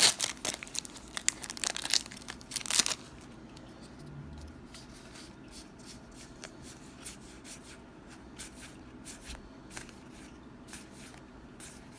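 A Magic: The Gathering booster pack's wrapper being torn open with loud crinkling for the first three seconds, then faint scattered flicks and clicks of the cards being handled and looked through.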